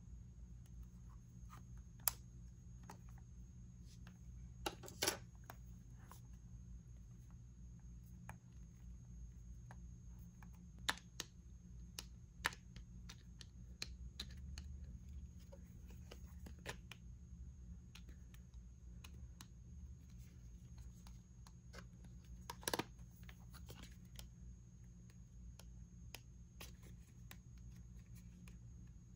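Scattered light taps and clicks of small objects being handled, a few sharper clicks among them, over a low steady hum.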